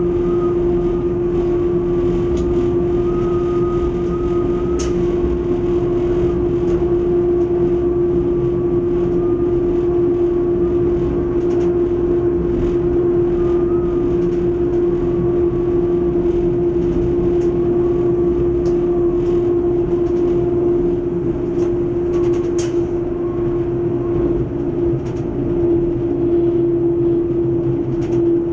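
PESA ATR 220 diesel railcar running along the line, heard from its driver's cab: a steady drone with one strong unchanging whine over it and occasional faint clicks.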